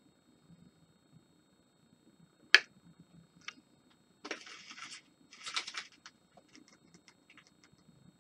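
A single sharp click about two and a half seconds in, as a hobby tool is set down on the desk's cutting mat. Then two short spells of scraping and rustling and a few light taps as miniatures and tools are handled.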